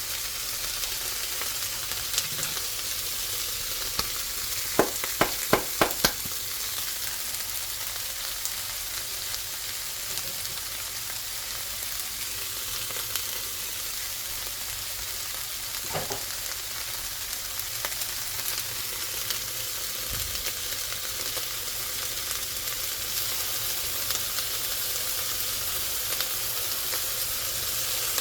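Vegetable fried rice with sausage sizzling steadily in a hot pan while it is stir-fried. About five seconds in there is a quick run of five sharp clicks, and a single click comes about halfway through.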